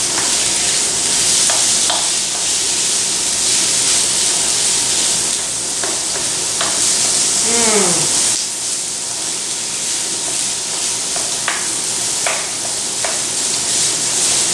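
Crumbled chicken sausage and garlic sizzling in olive oil in a hot skillet, with a utensil tapping and scraping the pan now and then as the meat is broken into small pieces. The sizzle eases slightly about eight seconds in.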